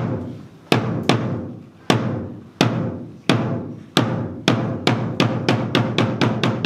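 Seated Korean percussion ensemble led by janggu hourglass drums, all players striking together in unison. The strokes start slow, each ringing out, and speed up steadily until they run into a fast stream near the end: the accelerating opening of a samul nori piece.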